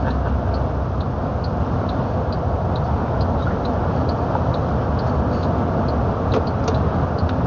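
Steady low rumble of a truck heard from inside the cab, with a faint light ticking at about two ticks a second.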